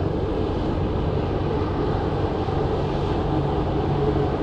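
Hovercraft running, a steady hum of engine and air propellers.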